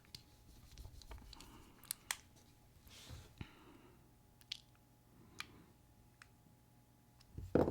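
Scattered sharp clicks and small taps from a Benchmade Foray folding knife being handled, its blade worked open and shut while it is checked for blade play. About six separate clicks, spread out with no steady rhythm.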